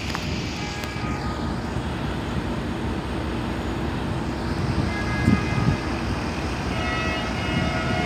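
Pakistan Railways diesel-electric locomotive pulling a passenger train slowly into a station: a steady low rumble of the engine and train.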